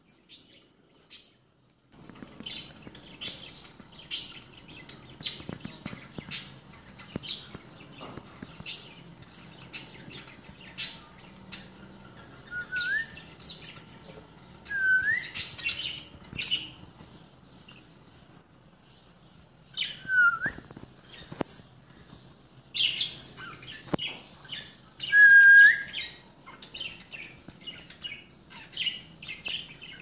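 Caged ringneck parakeets chattering: many short, sharp chirps and clicks, with a few whistled notes that dip and then rise, and several louder calls in the second half.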